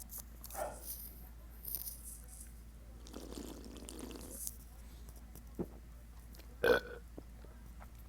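A man's burps, brought on by drinking Four Loco: a longer rough one about three seconds in and a short, louder one near the end, with a few small clicks between.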